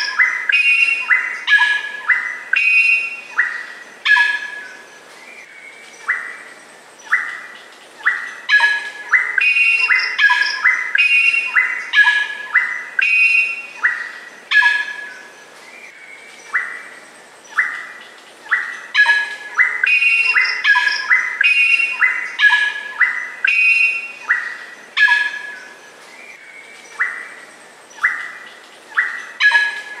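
Greater racket-tailed drongo singing: bursts of short, loud notes and whistles, several a second, with brief pauses between phrases.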